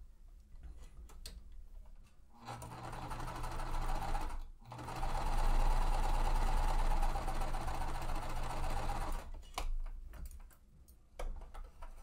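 Sewing machine stitching a seam in two runs, a short run and then a longer one after a brief stop, with a steady motor hum. A few light clicks come before and after the stitching.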